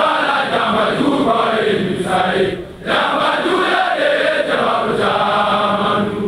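A group of voices singing together in chorus, with a brief break about two and a half seconds in.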